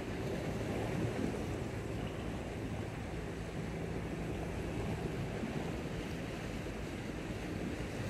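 Sea surf washing on a rocky shore with wind on the microphone, over a faint steady low hum.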